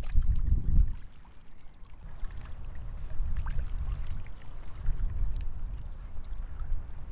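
Sea surf washing in, a low rumble that surges loudly for about the first second, falls away, then builds again, with faint small splashes over it.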